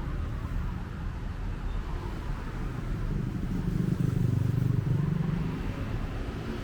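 Street traffic, with a motor vehicle's engine rumbling past and loudest about four seconds in.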